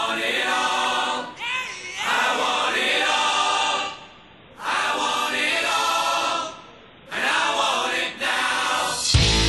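Music soundtrack: sung choral vocals in phrases of a second or two with short gaps between them, with electric guitar coming in near the end.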